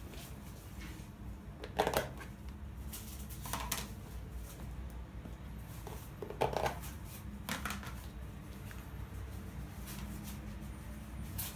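A handful of short rustling and clattering handling sounds, loudest about two seconds in and again about six and a half seconds in, over a low steady hum.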